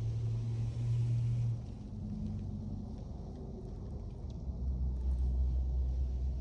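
Low, steady rumble inside the cabin of a car with the engine running; its pitch drops about four and a half seconds in.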